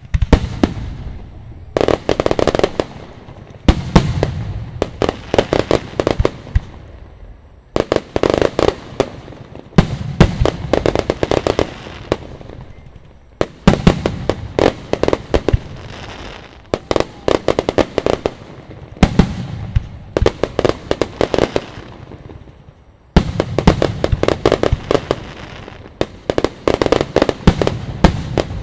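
Aerial fireworks bursting in repeated volleys, a new one every two to four seconds: each opens with sharp bangs and breaks into dense, rapid crackling.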